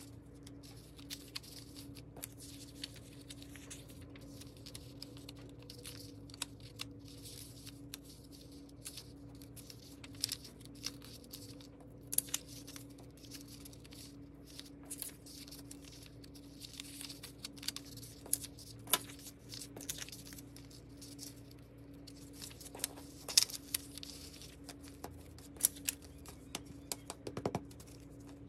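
Sheets of patterned paper and card handled, folded and pressed together by hand: irregular rustling and small sharp taps, sped up to double speed, over a steady low hum.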